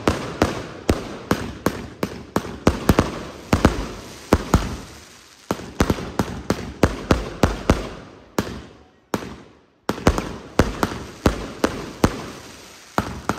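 A Broekhoff 1.2-inch 200-shot fireworks cake firing in rapid succession: sharp bangs of launching and bursting shots, about two or three a second, each trailing off into a hiss. There is a short break about nine seconds in, then the firing resumes.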